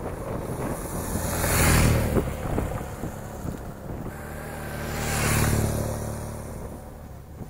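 BMW R1200 GS Adventure's flat-twin boxer engine as the motorcycle rides past on a gravel trail twice, loudest about two seconds in and again about five and a half seconds in, with the hiss of its tyres on the loose gravel rising at each pass.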